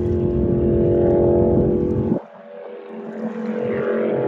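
Racing jet boat's engine running hard close by, a loud pitched engine note over a low rumble. It drops away abruptly about two seconds in, then builds back up and runs loud again.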